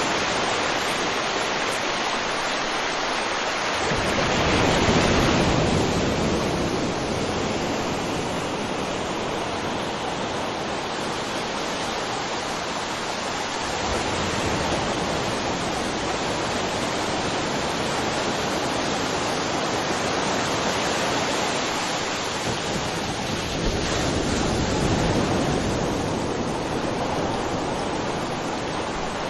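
River water flowing over rocks: a steady rushing that swells louder twice, with a deeper rumble, about four seconds in and again near the end.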